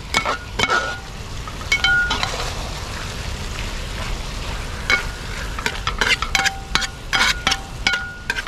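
Beef heart pieces in masala being stirred in a thick metal uruli over a steady sizzle. The utensil repeatedly knocks and scrapes against the pot, and each knock leaves a short metallic ring. The knocks come in bursts, thickest in the second half.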